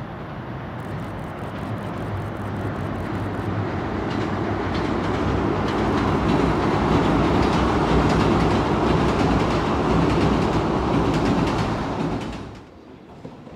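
Kintetsu 16000 series limited express electric train, six cars long, passing over a steel girder bridge: wheel and track noise with a run of clicks grows steadily louder as it nears, holds at its loudest for several seconds, then cuts off suddenly near the end.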